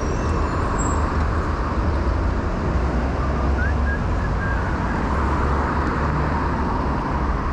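Steady city street traffic noise with a constant low rumble, heard from a moving bicycle.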